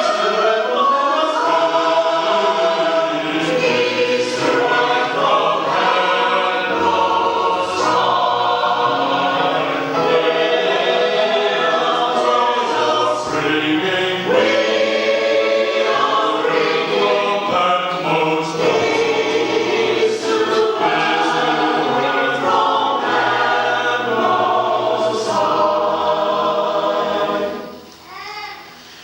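A choir of mixed voices singing a Christmas carol. The singing briefly falls away near the end, then comes back in.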